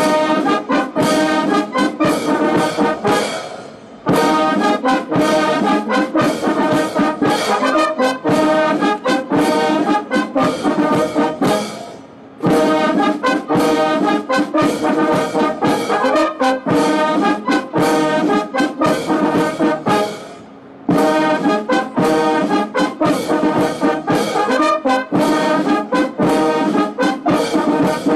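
Military brass band playing a ceremonial piece with trombones and trumpets, with brief pauses between phrases about every eight seconds.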